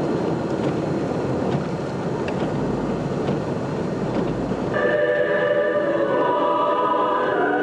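Steady rumble of a vehicle's cabin while driving on snowy streets, with a few faint clicks. About five seconds in, orchestral music starts abruptly, turned up on the vehicle's stereo.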